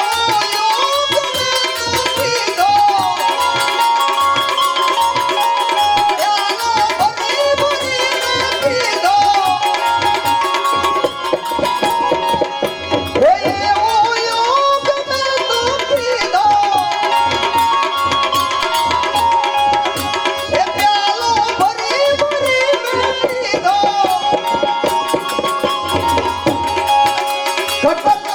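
Gujarati devotional folk music (santvani): tabla plays a steady, busy rhythm under a gliding melody line.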